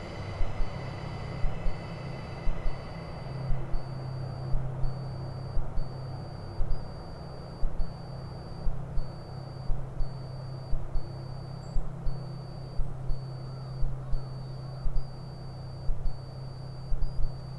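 Freight train rolling past: wagon wheels clacking over rail joints in pairs about once a second, over a steady low diesel drone, typical of the DF200 locomotive on this onion train.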